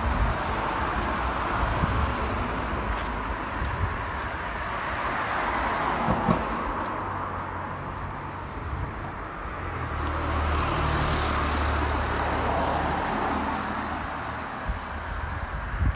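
Road traffic: cars passing on a road, tyre and engine noise swelling and fading twice, with a steady low engine hum through the second pass.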